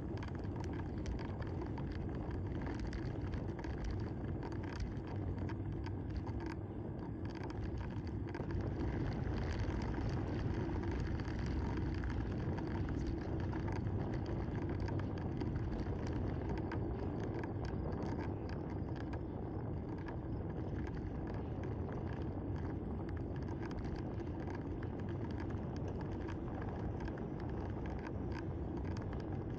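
Wind buffeting the microphone and tyres rolling on asphalt as a road bicycle rides at speed: a steady, even low rumble.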